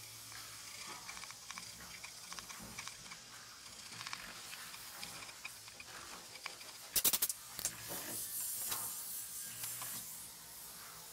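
Hand chisel paring a notch in a beech block held in the hand: light scraping cuts with small clicks. About seven seconds in comes a quick run of sharper, louder clicks, followed by more scraping.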